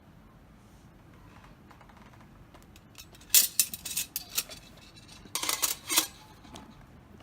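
Light metal clinking and clattering in two short bursts, a few seconds apart, typical of the thin steel parts of a small folding fire stand being handled and set together.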